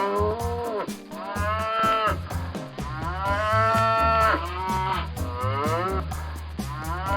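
A cow mooing about five times in a row, each long moo rising and then falling in pitch, over background music with a steady low bass line.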